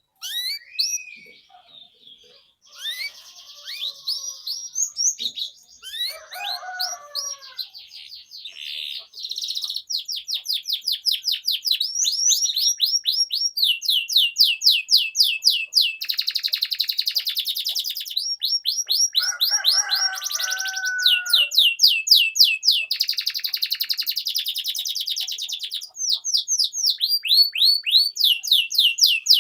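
Domestic canary singing a long, unbroken song: fast trills of many rapidly repeated, high down-slurred notes, switching between trill types, with lower warbling phrases twice. It starts abruptly.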